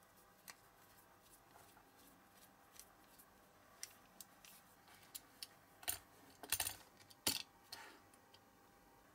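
Small ticks and clicks of a precision screwdriver working at the metal base of a die-cast Matchbox model car. About six seconds in come a few louder clacks and short scrapes as the die-cast car bodies are handled and set down on a cutting mat.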